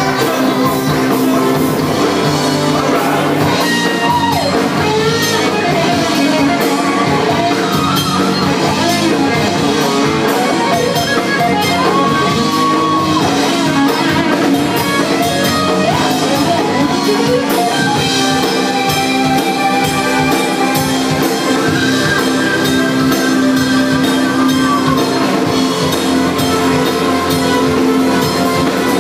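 A live rock band playing loud and steady: electric guitars, bass and drum kit, with a voice singing over them.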